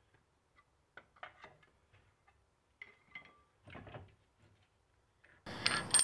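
Faint, scattered metallic clicks and clinks as the hub's retaining bolts are handled. About five and a half seconds in comes a louder scraping, rattling noise as the Jeep Wrangler TJ's front wheel hub bearing assembly is pulled off the steering knuckle.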